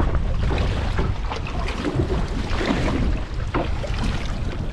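Wind buffeting the microphone on a small boat in choppy water, with waves slapping and splashing against the hull in irregular bursts.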